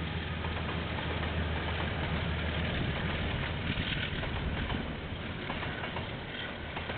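Diesel locomotives of a KiwiRail freight train passing, heard through a security camera's microphone: a steady low engine hum that eases off after about three seconds, as the clicks and rattles of the passing wagons take over.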